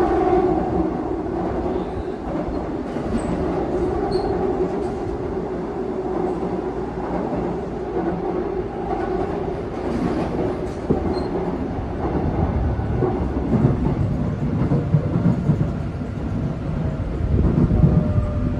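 Seoul Subway Line 2 train running on the rails: a steady rumble with scattered clicks from the wheels and track, the low rumble growing heavier in the last few seconds.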